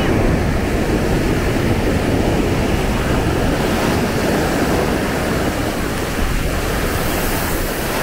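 Ocean surf breaking and washing up a sandy beach, a steady rush of waves, with wind rumbling on the microphone.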